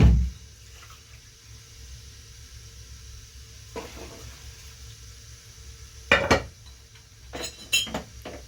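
Household objects being handled: a heavy thud at the start, then scattered knocks and a cluster of ringing clinks near the end, like pots and dishes clattering.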